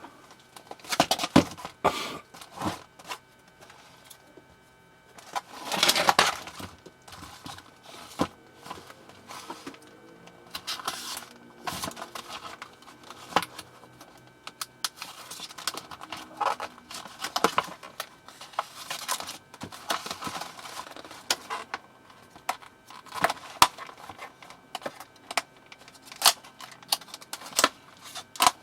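Packaging of a small cordless screwdriver set being opened and handled by hand: irregular rustling, crinkling and tearing with scattered plastic clicks and knocks.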